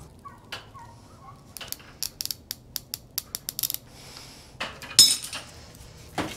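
Small metal hose-end fitting being tightened on steel-braided PTFE hose: a quick, uneven run of about a dozen sharp metal clicks, then one louder metallic clank about five seconds in.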